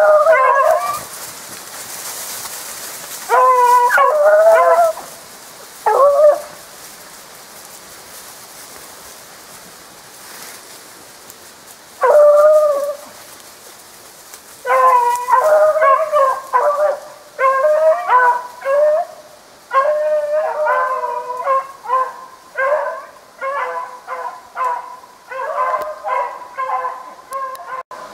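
Beagles baying: a few separate drawn-out bays in the first half, then a rapid string of bays from about halfway through. This is the voice of hounds running a snowshoe hare's scent trail.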